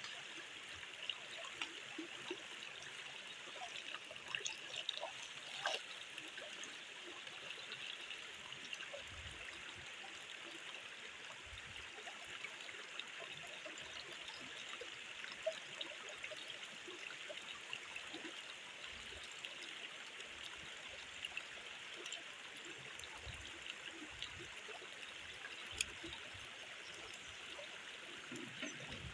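Shallow stream running over rock: a steady trickling rush of water, with a few light clicks and taps scattered through it.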